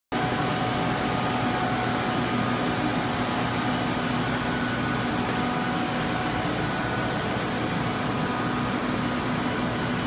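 Several blue water-damage air movers, centrifugal floor-drying blowers, running steadily: an even rush of air with a constant motor hum, drying out floors after a flood.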